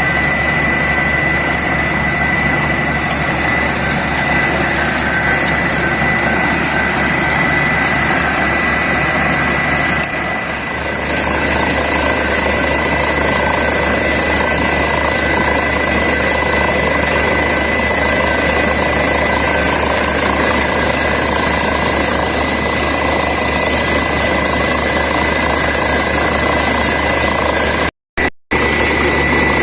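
Borewell drilling rig and its air compressor running steadily under load, a continuous heavy machine noise with a high whine. The sound dips briefly about a third of the way in and cuts out twice for an instant near the end.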